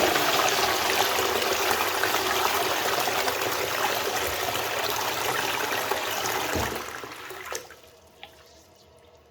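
Toilet flushing: a loud, even rush of water that starts to fade about seven seconds in, gives a short last gurgle, and dies away to a faint level.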